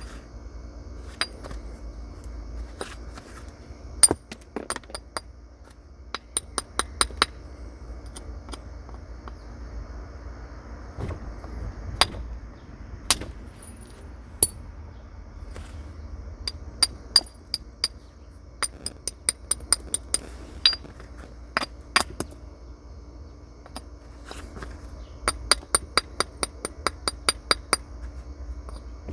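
Flint being knapped with natural tools: sharp, glassy clicks of stone struck on stone, some in quick runs of light taps and a few heavier single strikes.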